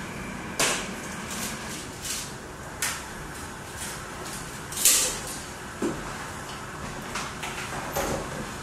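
Sparse, irregular scrapes and knocks of objects played as improvised percussion, about eight in all, the loudest about five seconds in.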